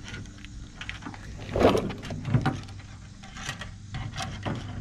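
New chrome gas cap clicking and knocking against the filler neck as it is fitted by hand, a handful of short clicks with the loudest about a second and a half in.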